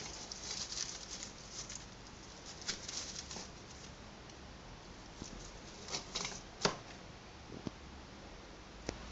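Pet rats scrabbling about a wire cage: patchy rustling of the shredded cardboard bedding with scattered sharp clicks, the loudest click about two-thirds of the way through.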